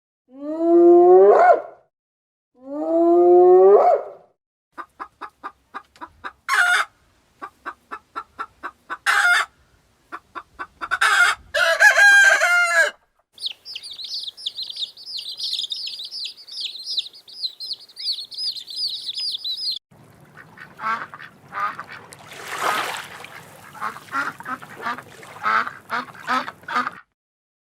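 A string of different animal calls one after another: three loud rising calls in the first few seconds, then a run of short quick calls, a few loud calls, a long high chirping in the middle, and a busy chattering in the last third.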